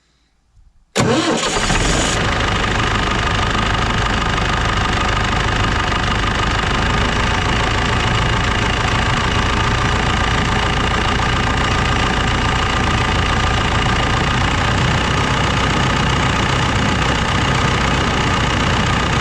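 Irrigation pump engine starting suddenly about a second in, then running steadily at an even speed as it pumps water to the irrigation boom.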